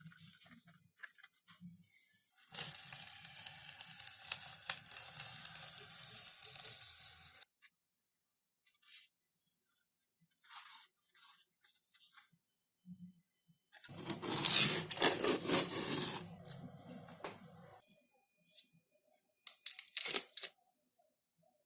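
Adhesive tape being pulled off a roll in two long, continuous rips of about four to five seconds each, with a shorter rip near the end and small handling clicks in between.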